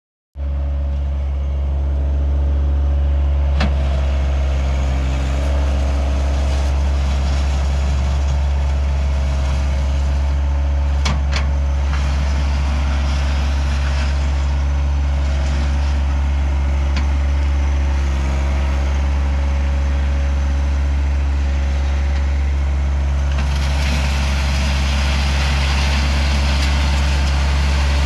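John Deere 1023E subcompact tractor's three-cylinder diesel engine running steadily, with a few light clanks.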